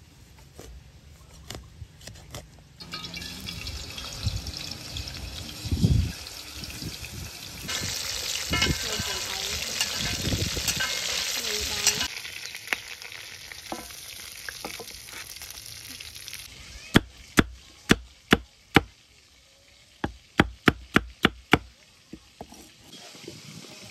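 Food sizzling as it fries in hot oil, in several short stretches that cut in and out. Later comes a run of about a dozen sharp, separate knocks.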